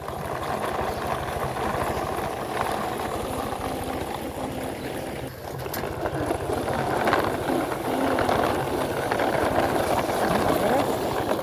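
A motor running steadily, with a fast low pulsing under a rough, noisy drone.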